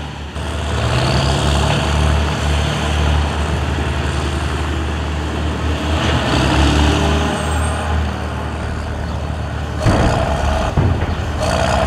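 Heavy diesel engine of a wheel loader running under load, a steady low rumble. About ten seconds in there is a clattering crash as the bucket tips its load into a dump truck.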